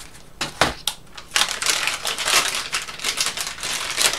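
A cardboard box being unpacked: a single knock about half a second in, then continuous crinkling and rustling of packaging as the contents are pulled out.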